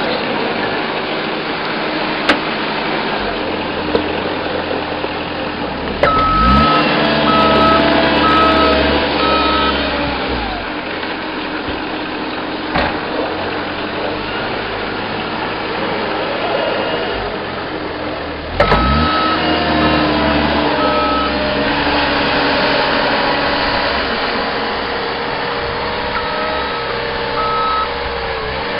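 Caterpillar 257B2 compact track loader's diesel engine running, revving up sharply about six seconds in and again about two-thirds through. Each time its backup alarm beeps steadily for a few seconds as it reverses, and the alarm beeps briefly once more near the end.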